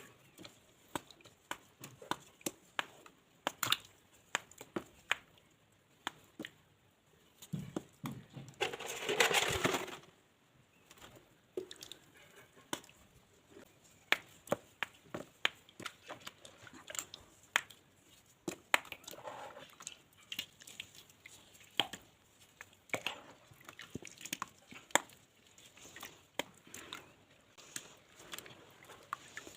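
Dried mud being crushed and crumbled: a stream of crisp cracks and snaps as pieces break, with a denser, louder crunching stretch about nine seconds in.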